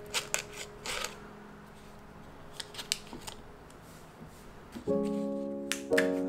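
Knife cutting through a stick of butter and tapping the cutting board: a few light clicks and knocks in the first second and again around three seconds in, over soft instrumental background music.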